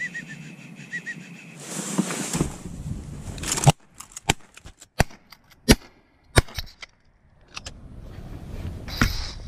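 A volley of shotgun shots at passing ducks: about five sharp reports in some three seconds, the first and loudest a little over three seconds in. A few short high whistles come in the first second.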